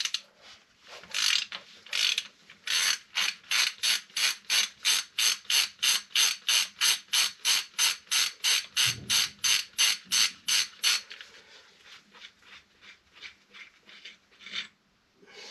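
Hand ratchet wrench clicking in rapid, even strokes, about three a second, as it undoes the 15 mm strut-to-knuckle pinch bolt, which turns freely. The strokes grow fainter and less regular for the last few seconds.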